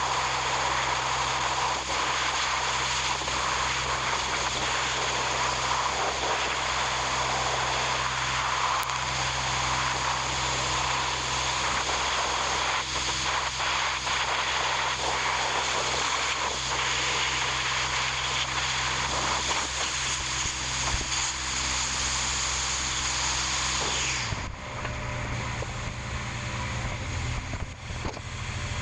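An engine running steadily with a strong hiss over it; near the end the hiss drops away and the low hum changes pitch.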